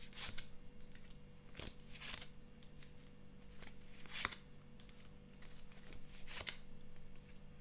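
Tarot cards being handled and laid out: about five short papery slides and flicks, the strongest about four seconds in and again past six seconds, over a faint steady hum.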